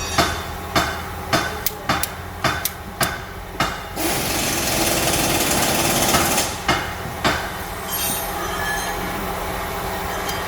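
Torque wrench ratcheting in quick sharp clicks while the cylinder head bolts of a Hyundai Tucson 2.0 petrol engine are tightened to torque, with a steady low hum underneath. About four seconds in, a loud hissing noise runs for about two seconds before the clicking resumes.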